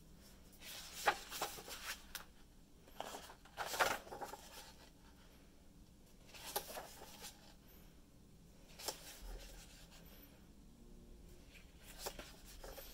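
Pages of a large art book being turned by hand: several separate bursts of paper rustling, a few seconds apart.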